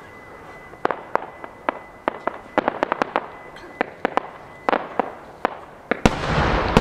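Large aerial fireworks shells (12-inch shakudama) bursting: an irregular string of sharp bangs, some loud and some faint. About six seconds in, one much louder burst booms and rolls on with a rumble and crackle.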